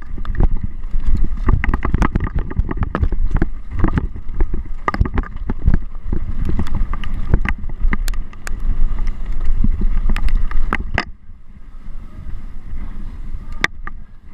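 Mountain bike rattling and knocking over rough ground, with a low rumble and wind buffeting the microphone; it quietens for a few seconds about eleven seconds in.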